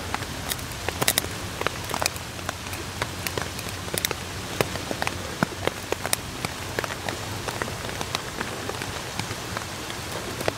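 Rain falling on a silnylon poncho tarp overhead: a steady hiss with many irregular sharp ticks of single drops.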